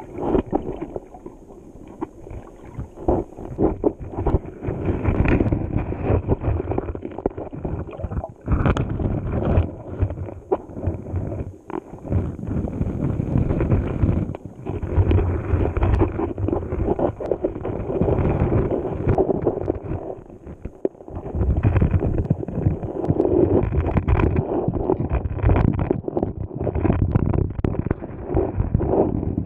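Muffled rush and gurgle of river current heard by a GoPro underwater on the riverbed, inside its waterproof housing, rising and falling in surges. Frequent knocks and scrapes run through it as the housing shifts against stones and sand.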